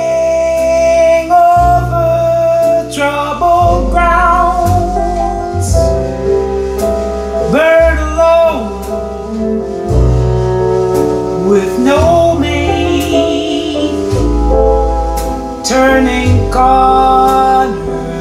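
Jazz ballad music: low bass notes and chords under a lead melody line that wavers with vibrato and slides between notes, with no words sung.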